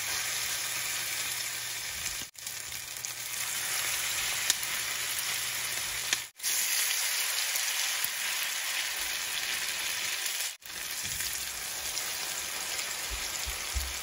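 Spoonfuls of a pasta-and-vegetable mixture frying in hot oil in a nonstick pan: a steady, dense sizzle, cut off for a split second three times.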